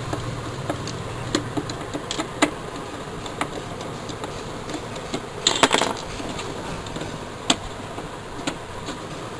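Plastic clicks and scrapes from hands working at the battery compartment cover on the underside of a digital weighing scale: scattered single clicks, with a quick cluster of rattles about five and a half seconds in, over a steady background hiss.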